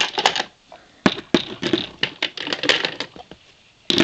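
Glass nail polish bottles clinking and knocking against each other and their storage box as they are picked out and handled, in a series of irregular sharp clicks.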